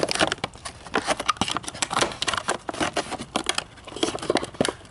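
Scissors snipping thin clear plastic packaging, with the plastic crinkling and crackling as it is worked loose by hand from a cardboard toy box: a run of irregular short snips and crackles.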